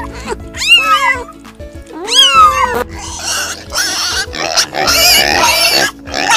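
A cat meowing twice, each a rising then falling call, over steady background music. From about three seconds in, a dense, noisy, flickering sound takes over.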